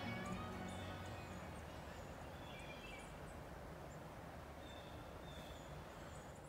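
The last notes of a guitar instrumental ring out and die away, leaving a faint, steady hiss with a few faint, short high chirps.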